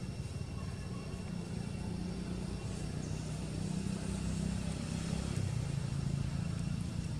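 Low, steady drone of a motor vehicle's engine running, growing a little louder and dipping slightly in pitch midway, with a faint steady high-pitched tone above it.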